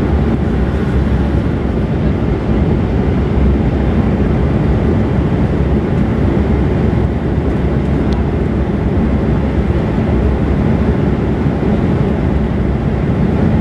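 Steady, low-pitched cabin noise inside a Bombardier CRJ900 jet on its descent to land: airflow and its rear-mounted turbofan engines, even and unchanging.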